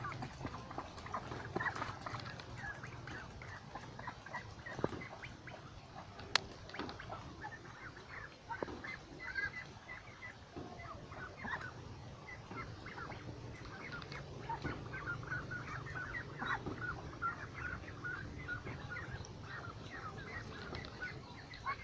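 A flock of white domestic ducks calling together: many short overlapping quacks and chatter, busiest in the second half. There is a single sharp click about six seconds in.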